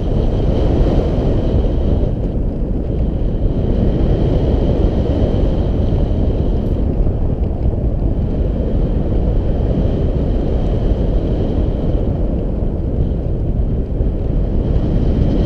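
Airflow over a GoPro Hero 4's microphone in paraglider flight: heavy, steady wind noise, with a faint high tone coming and going above it.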